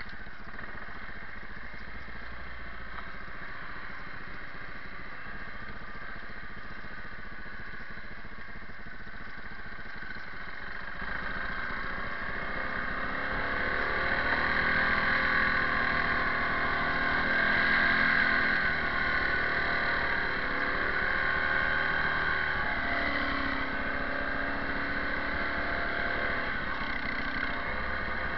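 Kawasaki 360 ATV engine running while the quad is ridden. It runs steady and quieter at first, then grows louder from about eleven seconds in, its pitch rising and falling as the throttle is opened and eased.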